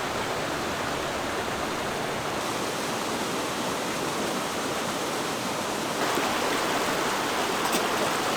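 Waterfall rushing water, a steady even rush that gets louder about six seconds in.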